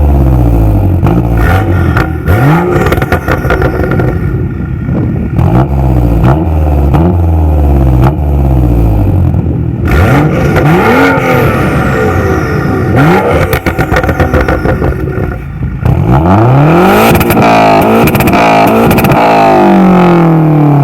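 Car engine free-revving through a Bastuck aftermarket exhaust in repeated short blips, with popping and crackling as the revs drop. The revving is busiest near the end.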